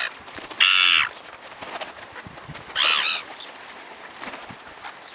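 Seagulls squawking: two loud, harsh calls, the first about half a second in and the second about three seconds in.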